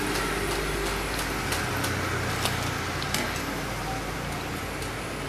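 Batter-coated potato strips deep-frying in hot oil: a steady sizzle with scattered small pops, over a low hum.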